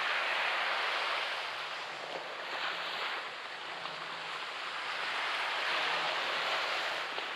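Surf breaking and washing up the beach in a steady hiss of rushing water, swelling with one wave at the start, easing, then building again with another wave about five seconds in.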